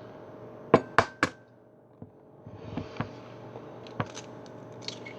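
Three quick sharp knocks about a second in, like a utensil or dish struck against a hard kitchen surface, followed by lighter scattered clicks and clatter of kitchen items being handled.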